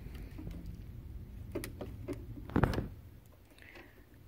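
Small clicks and one louder knock a little past halfway, from fingers working the flex-cable connector on an LCD TV's panel source board.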